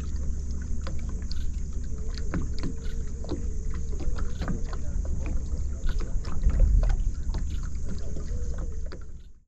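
Distant SpaceX rocket launch: a deep, steady rumble with irregular crackling, swelling about two-thirds of the way through.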